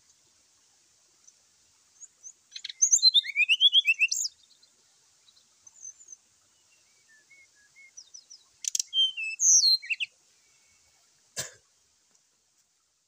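Brown-chested jungle flycatcher singing: a burst of rapid, varied whistled notes about two and a half seconds in and another near nine seconds, with scattered softer notes between them. A single sharp knock comes just after eleven seconds.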